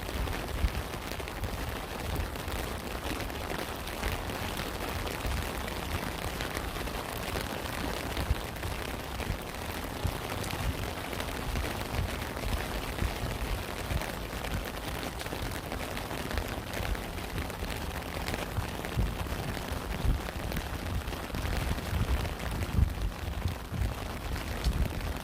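Steady rain falling: an even hiss with many small drop taps, and frequent low, dull thuds underneath.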